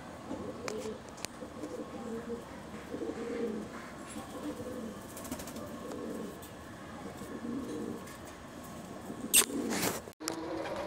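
Domestic pigeons cooing: a run of low, repeated coos. Near the end comes one short, loud knock, then the sound cuts out for a moment.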